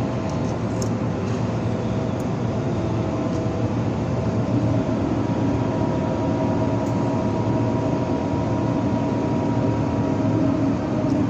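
Flux-core arc welding: the steady crackling sizzle of the arc during a vertical-up cover pass.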